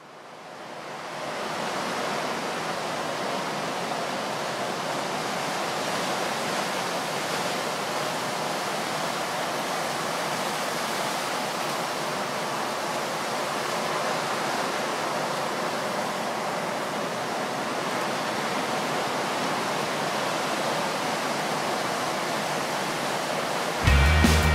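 Steady roar of heavy ocean surf, fading in over the first couple of seconds. Music with a bass line comes in right at the end.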